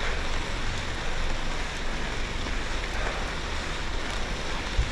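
Steady rushing noise of a bicycle rolling along a gravel trail bed, tyre noise mixed with wind on the microphone, with a single low bump near the end.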